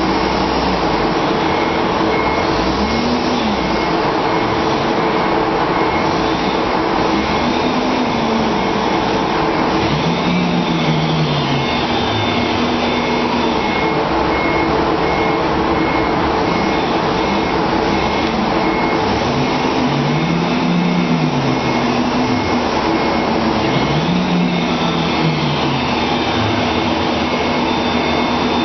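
Forklift engine running under hydraulic load while the rotating paper roll clamp grips, lifts and turns a paper roll, its pitch rising and falling in about five swells as it is revved, over a steady mechanical hum.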